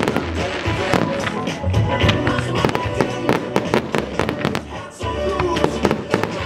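Show fireworks bursting and crackling in quick succession, many sharp bangs over loud music with a heavy bass; the bangs thin out briefly about five seconds in.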